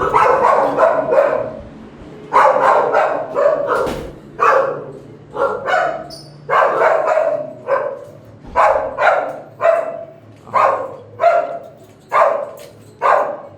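Shelter dogs in their kennels barking over and over, a steady run of about one to two loud barks a second, each bark trailing off in echo.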